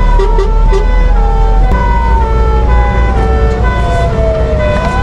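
Fire engine siren heard from inside the cab: a wail falling slowly in pitch, then sweeping quickly back up near the end, over a two-note siren alternating high and low. A steady low rumble from the moving truck runs underneath.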